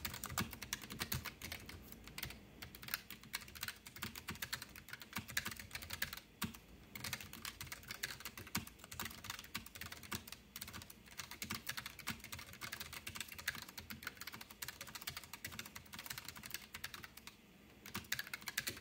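Hard, fast typing on a K1 mechanical keyboard with brown tactile switches: a dense, continuous clatter of key clicks, struck harder than normal typing.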